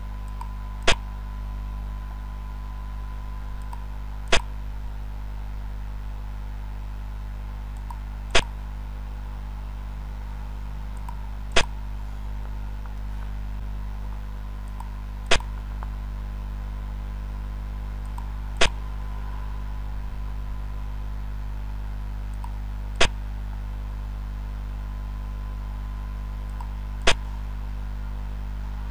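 Xiangqi program's piece-move sound effect: eight sharp clicks a few seconds apart, each one a piece being set down on the board. A steady low hum runs underneath.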